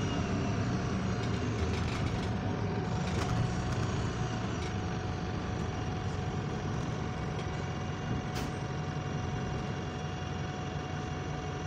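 Inside a moving bus: steady engine and road noise that gradually eases off, with a thin steady whine above it and a couple of sharp rattles.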